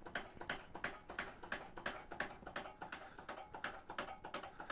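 Foot-pedal pump of an Abba Sky Lift hydraulic motorcycle lift being worked, a steady run of clicks about three a second as each pedal stroke raises the lift.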